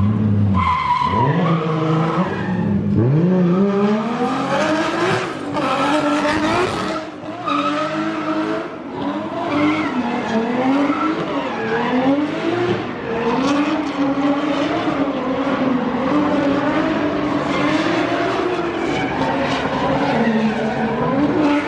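Drift car on track: the engine revs rise and fall over and over as the throttle is worked through the corners, with tyres squealing and skidding. The squeal is strongest a few seconds in.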